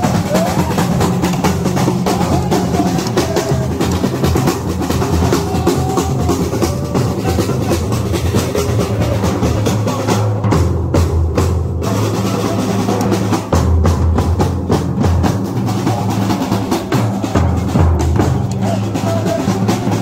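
A marching drum band playing: large bass drums and snare drums beaten in a steady, driving parade rhythm.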